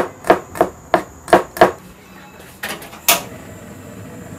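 Cleaver chopping garlic cloves on a cutting board: six quick knocks, about three a second, over the first second and a half. Then, after a short pause, a single sharp click about three seconds in.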